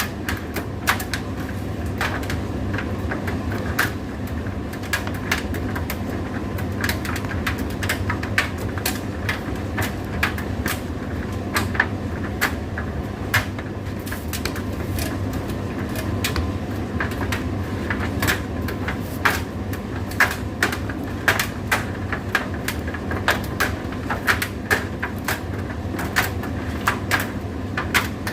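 Indesit IDC8T3 condenser tumble dryer running, with a steady motor and fan hum and frequent irregular clicks and knocks from inside the turning drum.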